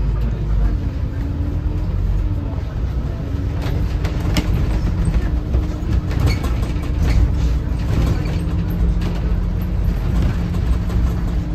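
Scania DC09 five-cylinder diesel of a Scania K280CB bus running steadily, with a slightly wavering hum and scattered light clicks and rattles.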